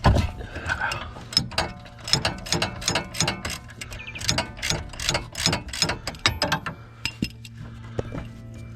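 Hand ratchet wrench clicking in quick, uneven runs of strokes while a 22 mm bolt is worked loose.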